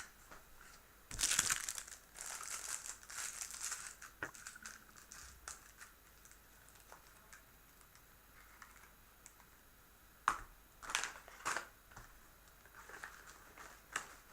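Packaging being crinkled and rustled by hand in several irregular bursts, with a few light clicks in between.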